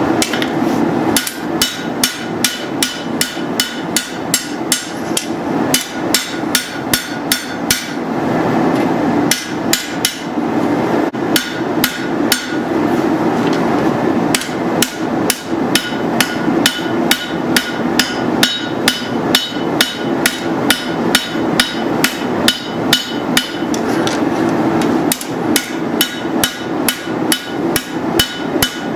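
Hand hammer striking steel on an anvil while forging a machete blade, in runs of blows about two to three a second with short pauses, each blow ringing, over a steady background noise.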